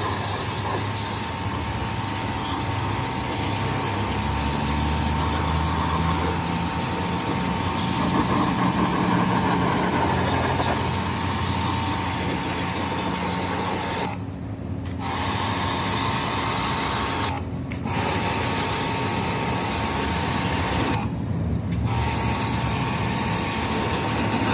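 A pressure washer jetting water at an air conditioner during a service: a steady hiss with a thin high whine, cut off three times for a moment while a low motor hum carries on.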